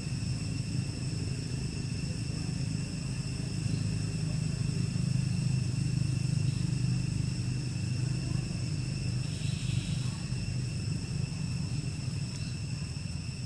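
Outdoor ambience: a steady low rumble, with a constant thin high-pitched whine above it.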